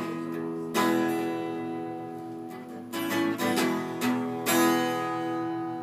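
Acoustic guitar strummed in a steady rhythm, chords ringing out between strokes.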